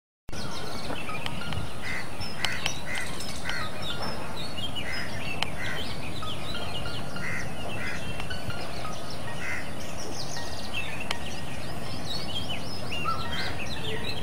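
Many birds calling and chirping over a steady hiss, with one short two-note call repeated many times at irregular intervals of about half a second to a second and a half.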